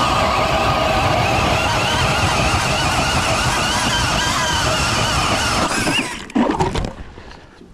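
Power ice auger drilling a hole through lake ice, its motor whining under load; it runs for about six seconds and stops.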